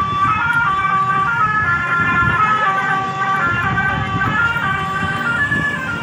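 Telolet musical horn on an odong-odong playing a quick melody of stepped high tones, over the low running of vehicle engines.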